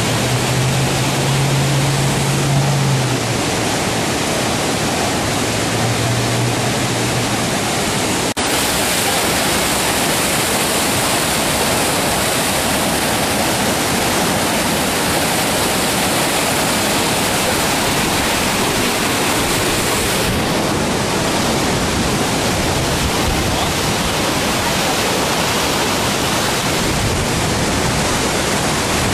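Fast-flowing floodwater rushing loudly and steadily over a flooded street.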